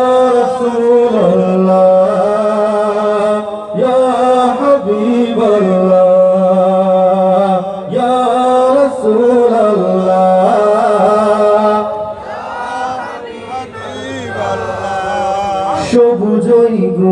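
Man singing a Bengali Islamic ghazal into a microphone: a wordless passage of long, wavering held notes, each a few seconds long.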